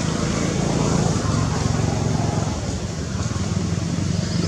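A motor vehicle's engine running steadily nearby, a low even drone with a fine rapid pulse.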